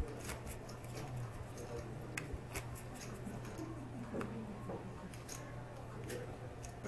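Dealer shuffling and pitching playing cards on a felt poker table: scattered short snaps and clicks. Under them run a steady low hum and a faint murmur of voices.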